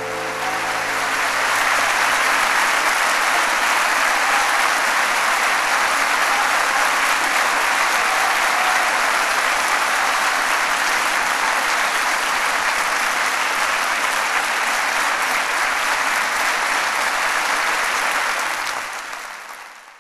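Audience applauding, a dense steady clapping that fades out in the last two seconds.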